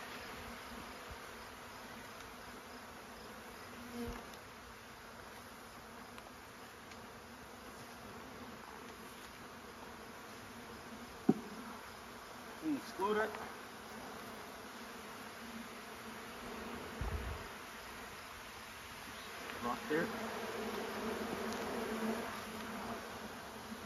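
A cloud of honeybees buzzing around an opened hive, a steady hum that swells louder now and then as bees pass close. A single sharp knock comes about eleven seconds in.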